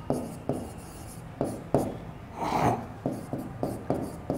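A pen writing on a board: a run of short, sharp taps as each letter is stroked in, with a brief scratchy rub a little past the middle.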